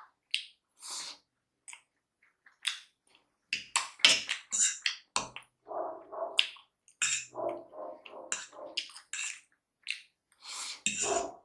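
Close-up mouth sounds of someone eating spicy chow mein noodles: irregular wet smacking, chewing and slurping, with many short sharp clicks and a few fuller, muffled mouthfuls.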